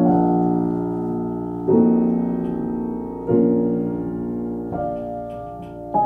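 Piano playing slow, sustained chords, a new chord struck about every one and a half seconds, each ringing and slowly fading.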